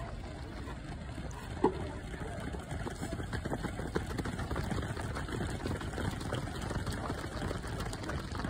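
Many quick footsteps of a large pack of runners on a synthetic track, growing louder from about three seconds in as the group passes close by, over a low steady rumble. A single sharp knock about one and a half seconds in.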